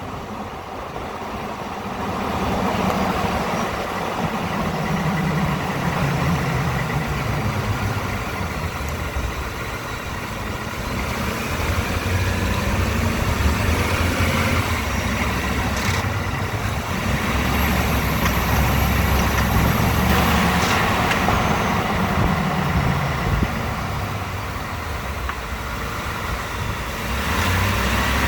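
2018 Ford F-150's 5.0-litre V8 running on the move, its pitch rising and falling as the throttle is applied and released, with a few sharp clicks. Easing off the pedal brings on the ratcheting rattle the owner hears every time he lifts his foot under load, a noise Ford technicians have not diagnosed.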